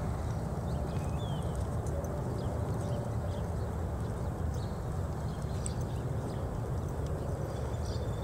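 A horse's hooves trotting on soft arena dirt, heard as muffled hoofbeats over a steady low rumble.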